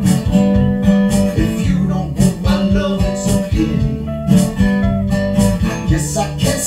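Guitar playing a picked instrumental passage of a slow song over a steady low bass line, with no singing.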